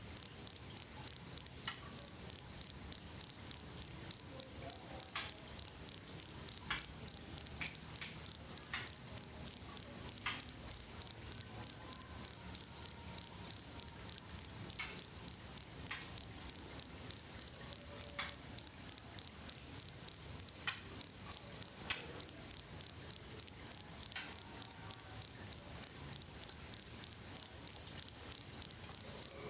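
Cricket chirping: a loud, high-pitched, steady song pulsing evenly a few times a second without a break.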